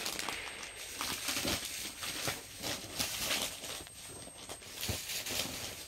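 Irregular rustling and crinkling of suit fabric being handled and shown.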